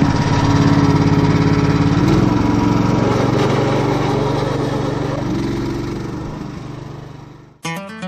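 Small engine of a homemade karakat swamp buggy running steadily as it drives along a dirt forest track. The sound fades out near the end, and acoustic guitar music starts just before the end.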